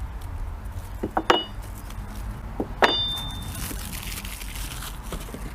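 Two sharp metallic clinks, about a second and a half apart, the second ringing briefly: metal parts of an air-gun bench rest knocking together as they are handled. Soft rustling of packaging as the parts are unwrapped.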